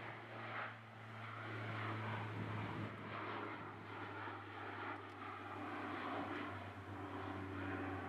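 Distant military aircraft engines, a faint steady low drone with a few higher steady tones over it.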